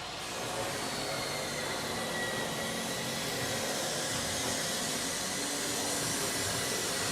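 Steady whir of a motor moving air, with a thin high whine over a low hum.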